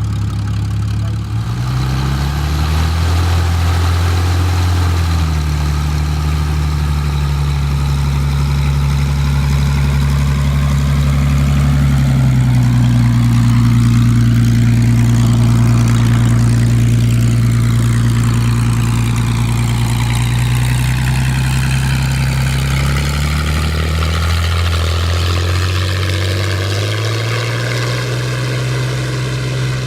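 Hawker Sea Hurricane's Rolls-Royce Merlin V12 engine running through a display pass: a loud, steady drone whose pitch shifts several times as the aircraft manoeuvres. It builds to its loudest about halfway through with the swirling, sweeping sound of a low flypast, then eases and rises in pitch again near the end.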